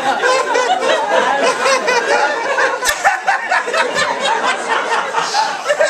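Audience laughing, many voices together, with a sharp click about three seconds in.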